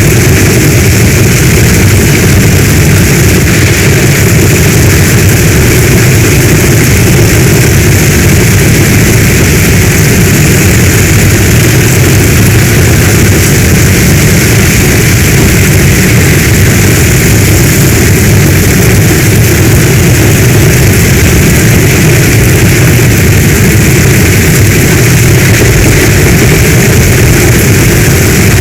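Heavy storm rain falling steadily: a loud, unbroken hiss with a deep rumble underneath.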